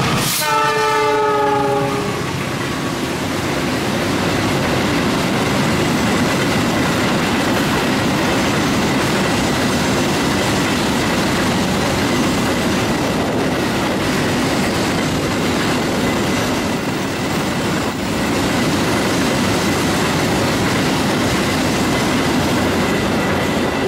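Diesel locomotive horn sounding one blast of about two seconds as the locomotive arrives, then a freight train of flat wagons rolling past: a steady loud rush of wheels on rail with clickety-clack.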